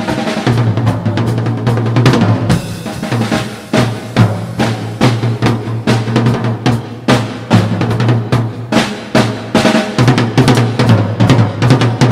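Drum kit solo: rapid, dense strokes around the kit over the bass drum, with rolls.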